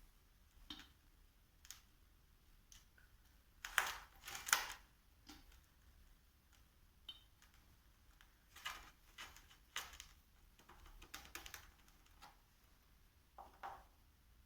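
Scattered light clicks and knocks, irregularly spaced, with a louder cluster about four seconds in.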